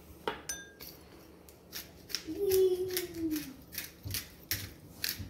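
Pepper grinder twisted over chicken, a run of short crisp grinding strokes a few times a second, with a ringing clink just after the start. About midway a short falling whine-like tone is the loudest sound.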